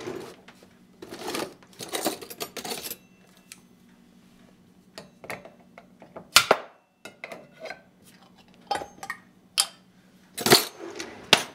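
A metal opener prying the flat lid off a glass canning jar of apple pie filling: scraping and clinking of metal on the lid, with sharp clicks about six seconds in and again near the end.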